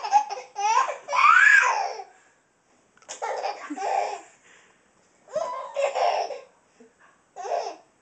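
Baby laughing hard in four bouts with short pauses between them. The first bout is the loudest, with a high squeal that rises and falls about a second and a half in.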